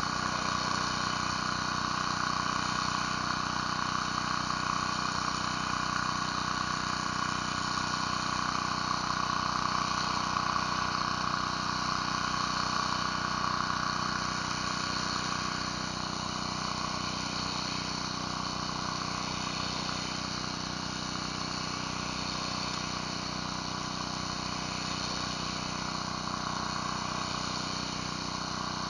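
Pressure washer engine running steadily, with the hiss of high-pressure water from a surface cleaner on concrete. The spray noise eases a little about halfway through.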